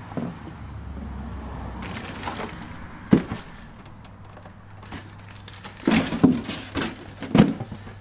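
Hard objects being handled: a run of sharp knocks and clatters, loudest in a cluster about six to seven and a half seconds in, over a low steady hum.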